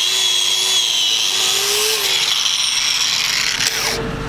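Angle grinder running against steel, cleaning the container's corner and base plate ahead of welding: a wavering motor whine under a harsh high scrubbing hiss. It is switched off about three and a half seconds in and spins down.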